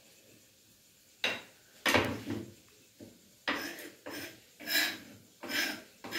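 Two knocks of wood and crockery on a counter a little after a second in, the second the louder, then a kitchen knife cutting vegetables on a wooden chopping board with about five strokes, roughly two-thirds of a second apart.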